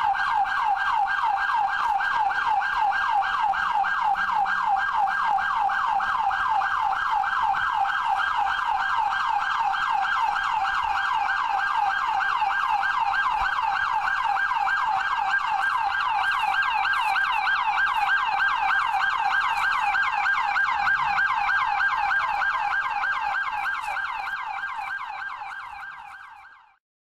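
Emergency vehicle siren sounding a fast, repeating up-and-down wail. It fades near the end and stops.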